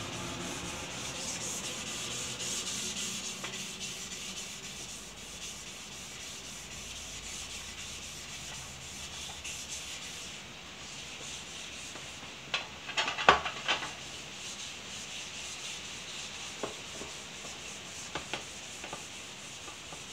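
Sandpaper rubbing back and forth on a brass lamp shade by hand, a steady scratching as the shade is wet-sanded at 1,200 grit. A little past the middle comes a quick cluster of sharp clicks and knocks, the loudest sounds here, and a few lighter clicks follow later.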